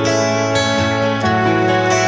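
Instrumental background music of held notes, the chord changing a little after a second in.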